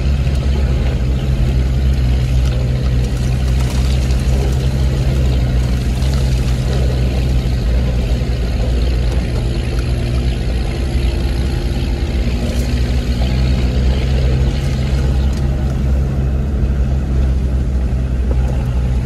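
Land Rover Discovery Td5's five-cylinder turbodiesel engine running steadily under way, with a constant rush of noise over the engine note.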